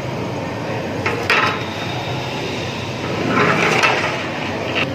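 Metal utensils knocking and scraping against large aluminium cooking pots, once sharply about a second in and in a longer clatter past the middle, over a steady background noise.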